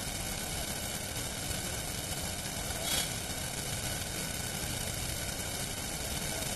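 Steady rushing noise of Mahanadi floodwater pouring through the open gates of a river barrage, with one brief louder swell about three seconds in.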